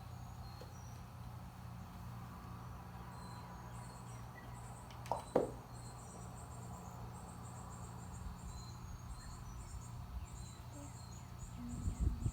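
Faint high-pitched chirping, repeating several times a second from about three seconds in, over a low steady hum, with one brief knock a little past halfway.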